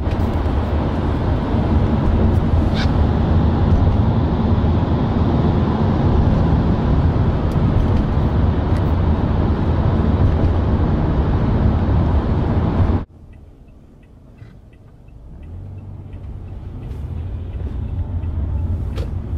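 Road noise inside a moving car's cabin: a loud, steady rumble and hiss of tyres on a wet road. It cuts off suddenly about two-thirds of the way through, and quieter engine and road noise then builds as the car gathers speed.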